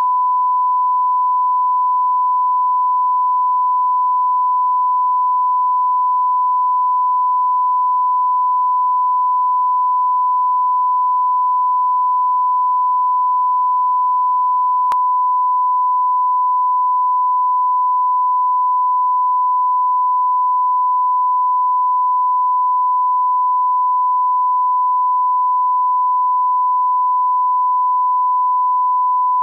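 Steady 1 kHz reference test tone: a single pure sine-wave beep held unbroken, the standard line-up tone played with color bars.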